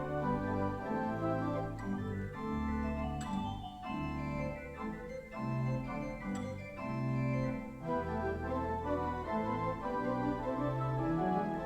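Church organ playing the prelude before the service: sustained chords over held bass notes, changing every second or so.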